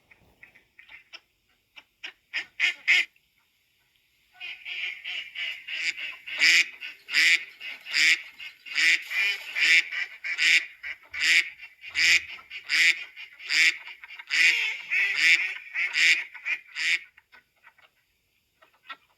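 Geese and ducks calling: a few scattered honks, a short pause, then from about four seconds in a long run of loud, repeated honking, a couple of calls a second over a busier chatter, which dies away near the end.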